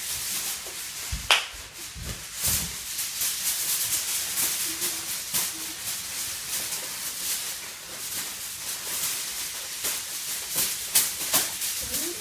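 Aluminium foil crinkling and crackling as it is scrunched by hand into a ball and a long sheet is handled, with a sharp click about a second in.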